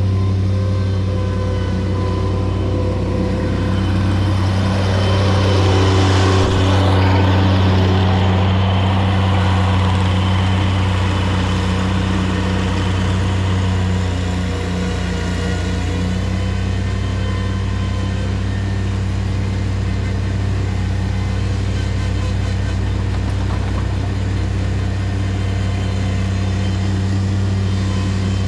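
Engine of an earthmoving machine running steadily at a constant speed. It grows louder, with a rush of noise, for a few seconds about five seconds in.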